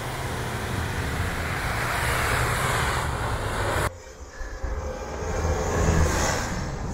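Lifted off-road pickup trucks driving hard through deep snow: engines running under load and tyres churning and spraying snow. About four seconds in the sound drops suddenly at a cut, then builds up again.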